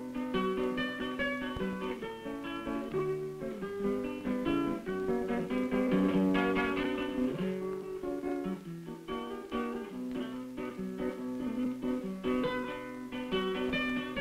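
Solo acoustic guitar played back from a disc recording: a continuous passage of plucked notes and chords.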